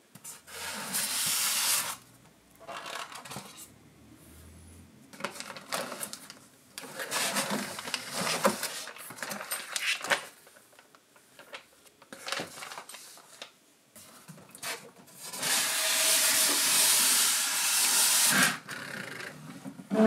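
Packaging being handled and unpacked: several bursts of rustling and scraping, the longest lasting about three seconds near the end, with small clicks and knocks in between.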